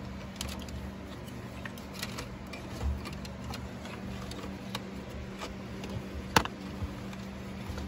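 Scattered light clicks and taps of the Jeep Wrangler's radio head unit, dash trim and wiring being handled, with one sharper click about six and a half seconds in, over a faint steady hum.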